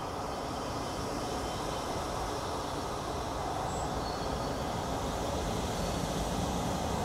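A deep, steady rumble that slowly grows louder, with a few faint, brief high chirps over it.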